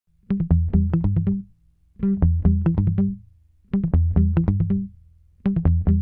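Intro music: short repeating phrases of quick, sharp notes over a bass line, four phrases about a second long with brief pauses between them.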